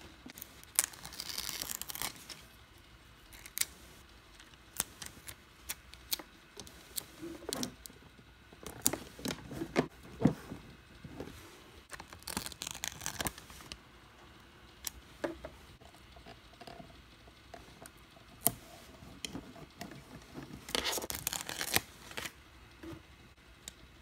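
Close-up handling of a paper sticker sheet: several stretches of rustling and peeling as stickers come off their backing, with scattered small clicks and taps of fingers and fingernails on the little plastic toy refrigerator.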